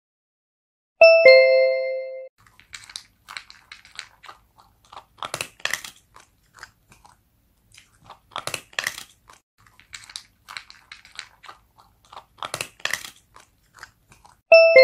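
A two-note ding-dong chime, high then low, about a second in and again near the end. Between the chimes, a dog chews crunchy food in repeated crunching bites.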